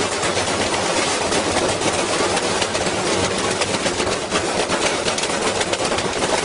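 Washing machine spinning with a heavy object inside, making a loud, continuous clatter of rapid knocks and rattles as the unbalanced drum batters the machine.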